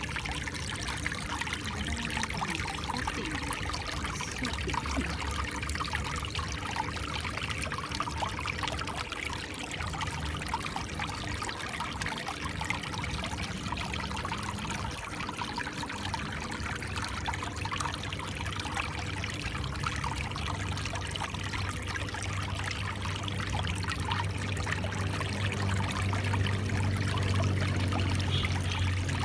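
Water trickling and splashing in a small stream, a steady flow throughout. A low rumble grows louder over the last ten seconds or so.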